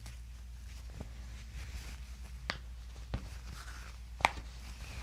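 A few sharp, single clicks, four in all and the last one loudest, over a steady low hum.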